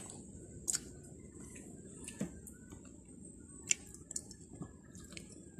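Scattered small clicks and wet squishes of someone eating green mango by hand, her fingers working the slices and dip in a bowl. There are about half a dozen separate ticks, with no steady rhythm.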